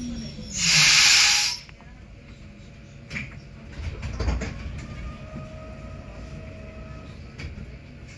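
Stuttgart rack railway car settling to a stop, with one loud hiss of air lasting about a second near the start. After it a low steady hum from the standing car, with a couple of knocks a few seconds in.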